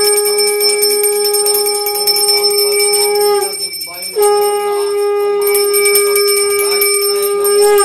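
Conch shell (shankha) blown in two long, steady blasts at one pitch, blown during a Hindu puja. The first blast lasts about three and a half seconds; after a short break for breath the second starts about four seconds in and is held through the rest.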